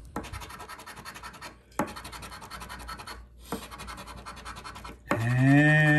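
A coin scraping the coating off a paper scratch-off lottery ticket, in three passes of quick back-and-forth strokes, each about a second and a half long with short pauses between. Just after the third pass, a voice holds one long, level note.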